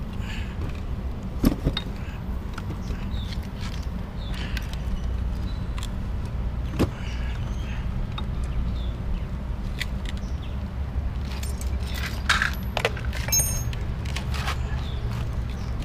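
Scattered metallic clicks and clinks of engine parts and bolts being handled on a Honda EX5 motorcycle crankcase, with a few sharper clinks near the end, over a steady low hum.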